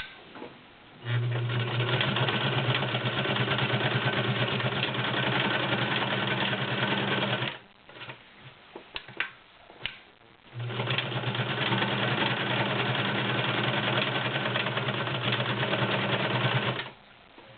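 Brother Model 2010 sewing machine stitching through four layers of denim: the motor runs steadily for about six seconds, stops with a few clicks, then runs again for another six seconds.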